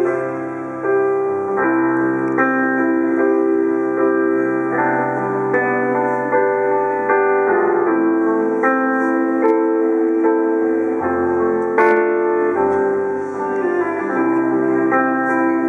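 Grand piano playing a slow, sustained ballad melody with chords, performed live. There is one brief click about twelve seconds in.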